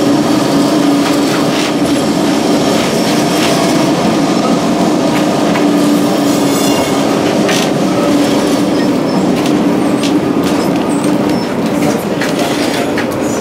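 Old electric tram running along its rails, heard from inside the car: a steady low hum under the noise of the wheels on the track, with scattered clicks and rattles.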